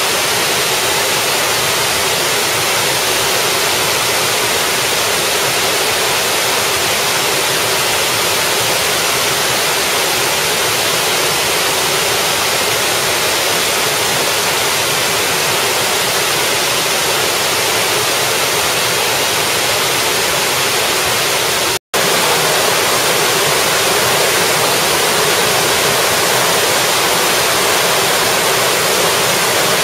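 Steady rush of a small waterfall spilling down several tiers over rocks into a mountain stream. It cuts out for an instant about three-quarters of the way through.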